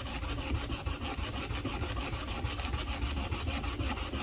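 Sandpaper rubbed by hand in steady back-and-forth strokes along a steel knife blade, a continuous scraping. This is the early, low-grit stage of sanding the blade toward a mirror polish.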